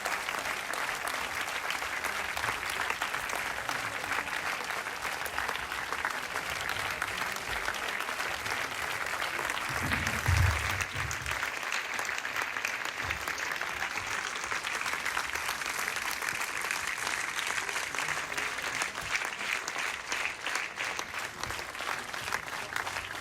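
A cinema audience applauding steadily, a dense even clapping that holds throughout. A single low thump about ten seconds in.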